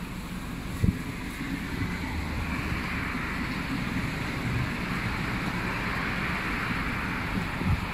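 Road traffic: cars driving past on a street, their tyre hiss swelling through the middle, over wind rumbling on the microphone. Two short low thumps, about a second in and near the end.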